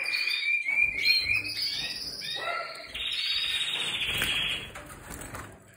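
Timbrado Español canary song: fast rolling trills and shorter chirping phrases, with one long trill from about three seconds in that stops shortly before the end.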